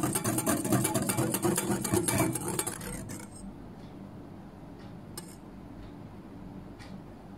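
Wire whisk beating cream by hand in a glass bowl: a fast, steady clatter of metal wires against the glass. The whisking stops about three seconds in, leaving only a few light clinks, as the cream holds small peaks.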